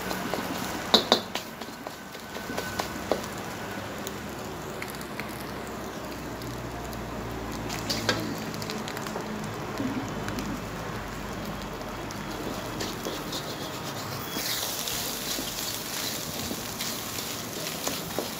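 Food frying in a pan with a steady sizzle, stirred with a utensil that clicks and scrapes against the pan now and then. The sizzle grows louder and brighter near the end.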